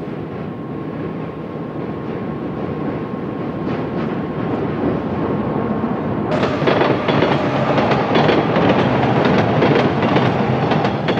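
Elevated subway train running: a steady rumble with a faint steady whine, which about six seconds in grows louder into a rapid clatter of wheels over the rails.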